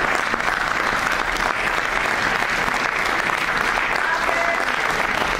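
Theatre audience applauding: steady, dense clapping from a full house.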